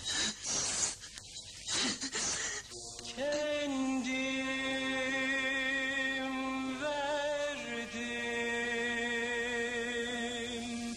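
A man chanting solo from about three seconds in, holding long, wavering notes that step down in pitch a few times, in the manner of a religious chant. The first few seconds hold indistinct noise.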